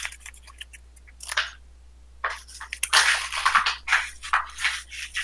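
A deck of Magic cards being shuffled by hand for a mulligan: scattered card clicks at first, then a dense run of rapid riffling and rustling from about two seconds in.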